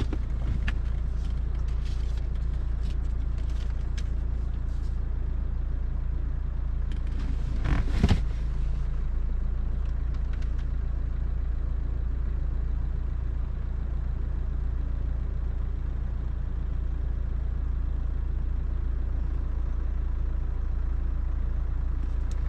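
Car engine idling, a steady low hum, with a brief knock about eight seconds in.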